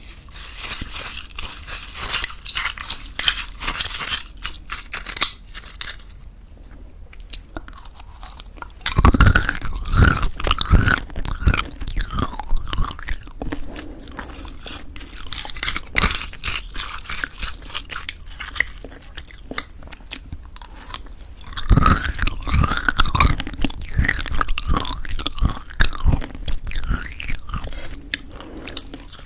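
Close-miked chewing and crunching of crunchy homemade granola mixed into thick yogurt, with a wooden spoon scraping and scooping in a small glass. Two loud bouts of crunchy chewing come about a third of the way in and again about three quarters of the way in.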